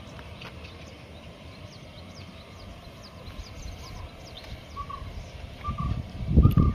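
Birds calling outdoors: quick high chirps, and from about four seconds in a short call repeated roughly every two-thirds of a second. A low gusty rumble underneath grows louder near the end.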